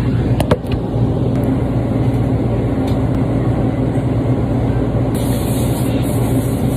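A steady low machine hum, with a couple of sharp knocks about half a second in as the phone is handled and set down. A high hiss joins about five seconds in.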